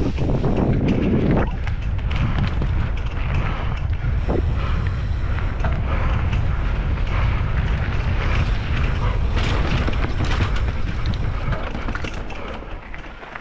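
Pole Stamina 180 mountain bike ridden down a rough trail: wind buffeting the microphone over the tyre noise, with a steady patter of clicks and rattles from the bike over the ground. The noise dies down over the last couple of seconds as the bike slows.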